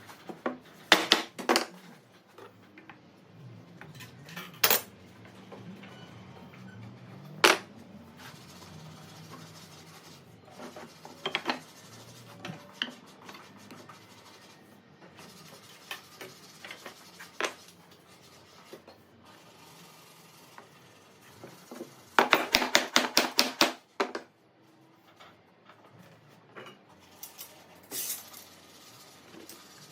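Scattered sharp clinks and knocks of small hard parts and tools being handled, with a rapid run of even taps lasting about two seconds, three quarters of the way through.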